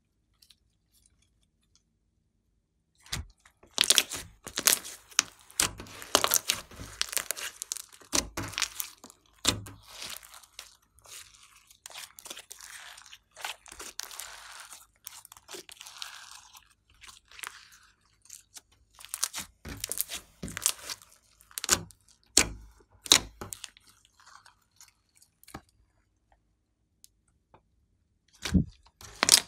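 Glossy slime being squeezed, kneaded and stretched by hand, giving a dense run of sticky crackling and popping clicks. It starts about three seconds in and pauses briefly near the end.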